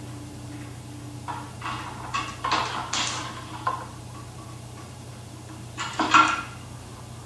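Brass test-kit hose fittings clinking and rattling as they are unscrewed and pulled off the test cocks of a double check valve assembly. There are several short clanks a second or two in and a louder clatter near the end.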